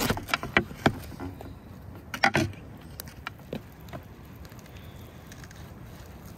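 A knife cutting down through a whole roasted goose, crunching through its crisp skin: a quick run of sharp cracks in the first second, another burst of crackling about two seconds in, then a few lighter cracks as the bird is opened up.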